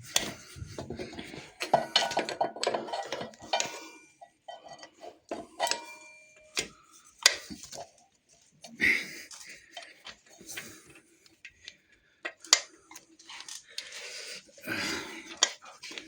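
Scattered metallic clicks, taps and clinks of hand tools and small steel brake parts being handled while rear brake pads are fitted into a motorcycle's brake caliper, a few with a brief ringing.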